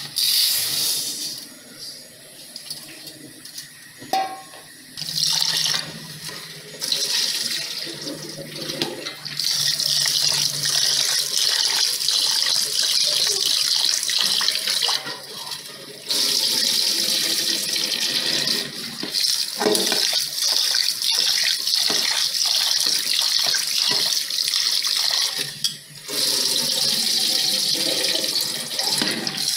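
Tap water running into a steel bowl in a stainless steel sink while rice is rubbed and swished by hand to wash it. The flow comes in short spells at first, then runs steadily from about ten seconds in, with brief breaks twice.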